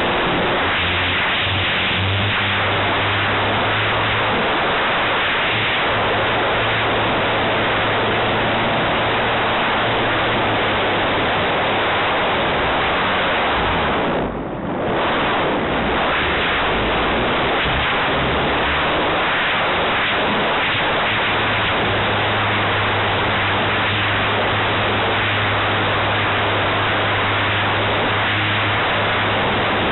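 Model aerobatic airplane's engine and propeller running, heard from a camera on board the 78-inch Extra with heavy air rush over the microphone. The engine is briefly throttled back about halfway through, on a vertical downline, and the sound dips for about a second.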